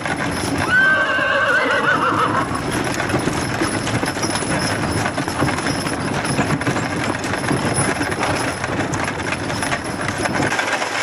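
A team of harnessed horses clip-clopping along a gravel road, with the wagon clattering behind them. About a second in, a horse whinnies briefly with a wavering pitch.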